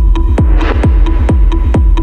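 Techno music: a steady kick drum about twice a second over a bass line and a repeating high tick, with a short noisy swell about half a second in.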